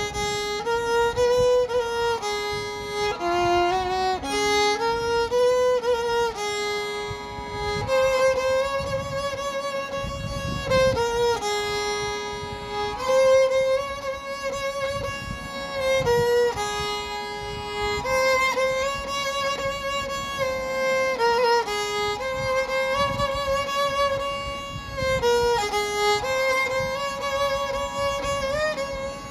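Background music: a slow violin melody of held notes with vibrato over a soft low accompaniment.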